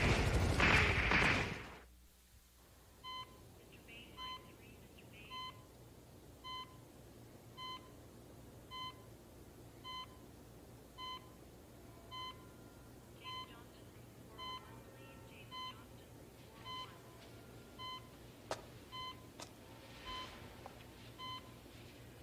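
A loud burst of noise that cuts off about a second and a half in, then a hospital heart monitor beeping steadily, one short electronic beep about every 1.1 seconds, over a faint low hum.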